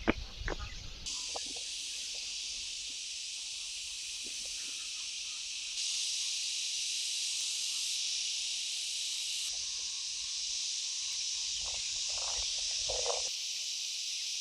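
A chorus of cicadas, a steady high buzz that starts about a second in and jumps in level abruptly a few times. There are a few light footsteps near the start.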